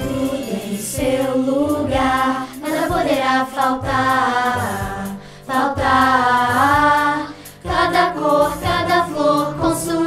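Girls' voices singing a song together over backing music, in phrases with short breaks between them.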